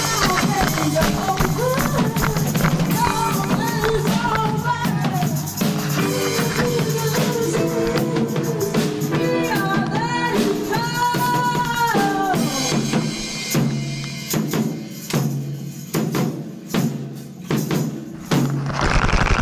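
Background music with a steady beat and a melody; in the last few seconds it thins to spaced beats.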